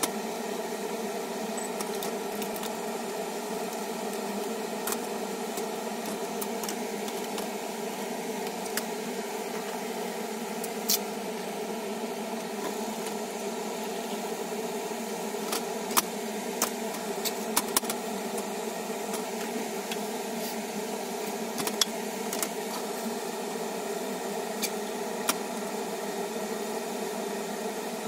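Steady stovetop cooking noise, the pan of clams simmering in olive oil over a gas burner, with scattered sharp pops and clicks, sped up fourfold.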